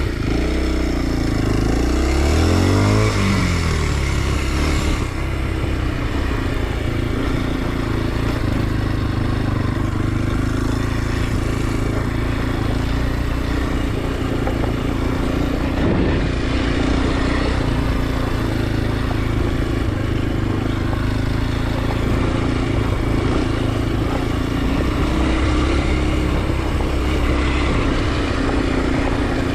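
Kawasaki KLX 230 SM's single-cylinder four-stroke engine running, revving up and dropping back about three seconds in, then holding a steady note.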